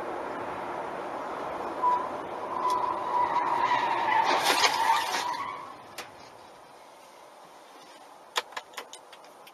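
Dashcam road noise, then an SUV's tyres squealing in one wavering tone from about two seconds in, growing louder as the SUV skids sideways across the lanes. It ends in a crash near five seconds in, followed by a few sharp clicks near the end.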